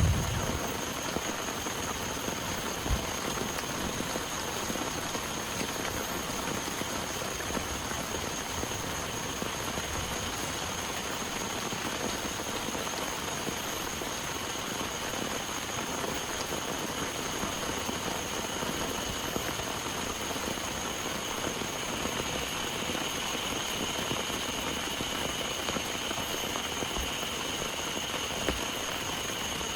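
Heavy rain falling steadily, an even hiss of drops with no let-up. A faint steady high-pitched tone runs underneath.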